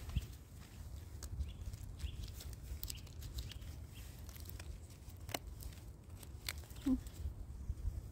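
Soft rustling and a few sharp clicks and snaps as a gloved hand pulls oyster mushrooms off a fallen log, over a low rumble. A short low hum comes about seven seconds in.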